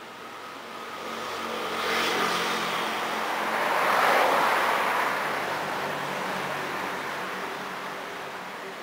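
A road vehicle passing by: a broad rushing noise swells over about three seconds, peaks near the middle, then slowly fades away.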